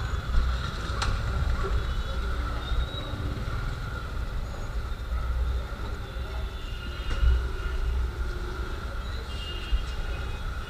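Motorcycle engines idling and running in a steady low rumble that swells and dips, with a few faint clicks.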